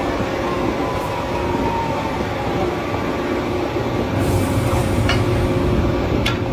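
Drilling rig machinery running steadily with a heavy low rumble as the top drive lowers a stand of drill pipe during tripping, with a faint whine that drops slightly in pitch early on and two short metallic clinks in the second half.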